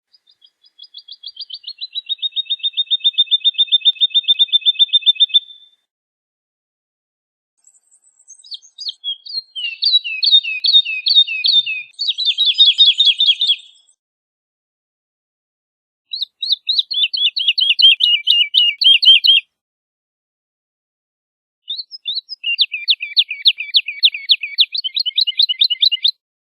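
Woodlark singing four phrases, each a fast run of repeated notes, with short pauses between. The first phrase steps down a little in pitch at the start and swells louder as it goes on; the later phrases are quicker, more tumbling trills.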